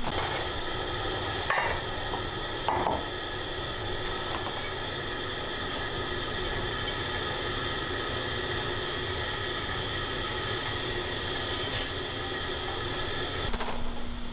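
Propane camp stove burner running steadily under a pot, with two brief clinks of utensils in the first few seconds; the steady sound stops near the end.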